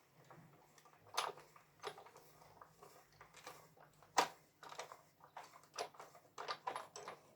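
Scattered light clicks and taps at uneven intervals from card and a small metal cutting die being handled and worked, over a faint low hum.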